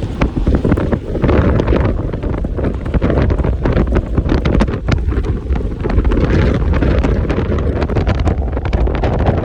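Strong wind buffeting the microphone: a loud, steady low rumble with constant crackling.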